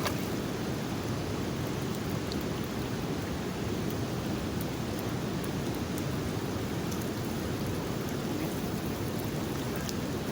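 Steady, even wash of fast-flowing floodwater from the swollen river.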